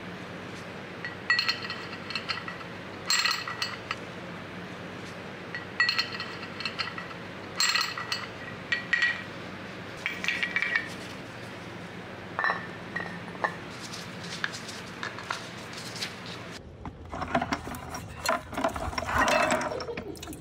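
Small metal parts clinking and ringing against each other in a handful of separate strikes, then a denser spell of rattling and clattering near the end, over a steady low hum.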